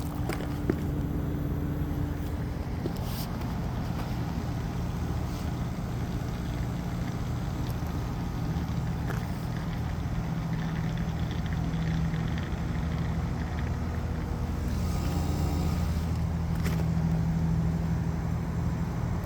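Carrier 38MAQ inverter minisplit heat pump's outdoor unit running as it comes out of defrost: a steady low compressor hum whose tones shift in pitch, with a sharp click about a second in.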